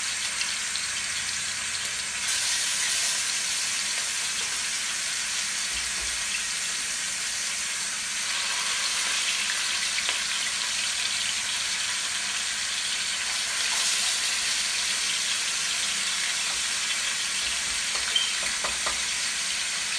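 Seasoned chicken pieces sizzling as they fry in hot oil in a stainless steel pot, a steady hiss that swells louder about two seconds in and again partway through as more pieces go in. A few light clicks near the end.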